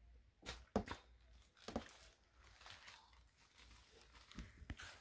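Faint scattered rustles and soft taps of close movement, about half a dozen short ones, the clearest about a second in and just under two seconds in.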